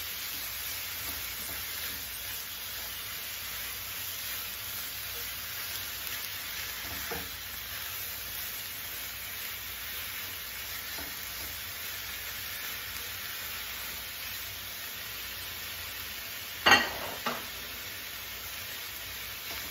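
Cubed chicken thigh sizzling as it browns in a large pan with onion, tomato and spices, stirred and scraped with a silicone spatula. There is a sharp knock near the end, followed by a smaller one.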